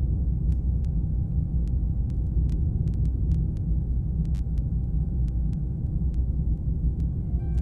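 Steady low rumble of a helicopter in flight, heard from on board: engine and rotor drone with no rise or fall, and a few faint scattered clicks.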